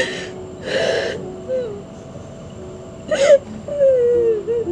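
A young woman crying: sobbing breaths with a sharp gasp just after three seconds, then a drawn-out wavering whimper near the end.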